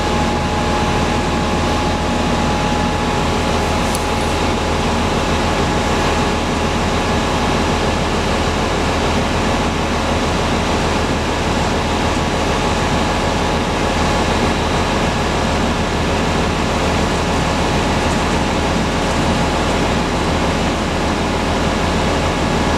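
Diesel engine of a Screen Machine 4043TR screening plant running steadily while its hydraulics extend a cylinder to lower the screen box into service position, with a steady whine over the engine noise.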